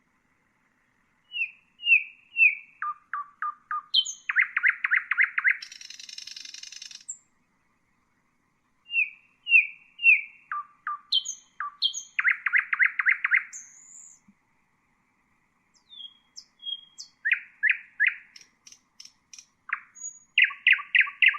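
Nightingale singing in separate phrases with short pauses between them. Each phrase has a few short slurred whistles and a fast rattling run of repeated notes, and some end in a harsh buzzy stretch.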